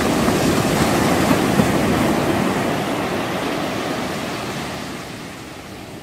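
Sea water rushing past a moving tour boat, with wind on the microphone. It is loudest in the first two seconds and fades toward the end.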